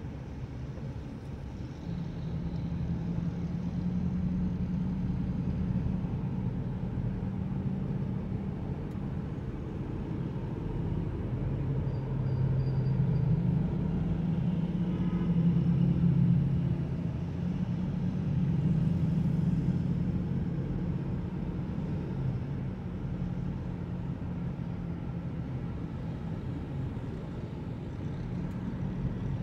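A car driving on a city road: a steady engine hum with road noise, growing louder around the middle and then easing off.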